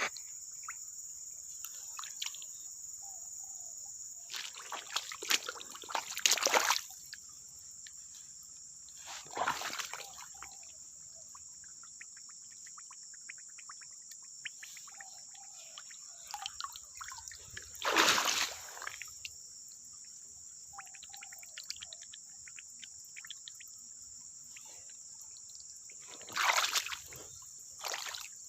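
Steady high-pitched insect drone with faint, short bird calls, broken by several loud splashes of water.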